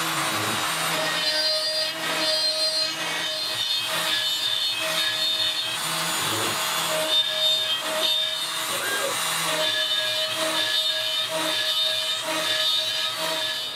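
CNC router spindle milling a grid of 20 mm clamp holes into a plywood spoilboard: a steady whine with rasping cutting noise, changing every second or two as the bit moves from one hole to the next.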